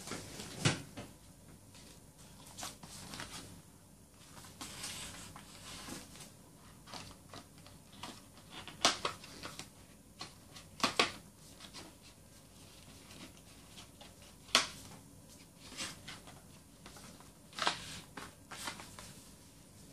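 Hands handling cardboard album cases, photocards and packaging: on-and-off rustling with several sharp taps and knocks as items are picked up and set down.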